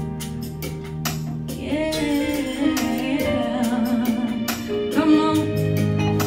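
Gospel praise-and-worship music: a woman singing with vibrato over sustained instrumental chords and light percussion, her voice swelling in from about two seconds in.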